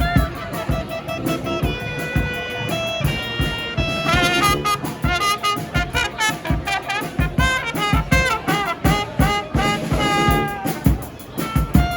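Brass band playing, several horns holding and trading sustained melody notes over a steady drum beat.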